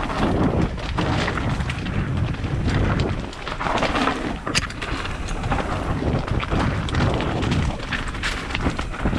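Mountain bike riding over rough, rocky ground: wind rumbling on the microphone, with rattles and knocks from the bike throughout.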